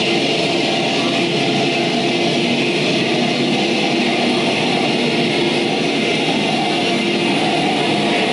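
Electronic soundscape score: a dense, steady wash of noise with faint held tones underneath, unchanging in loudness throughout.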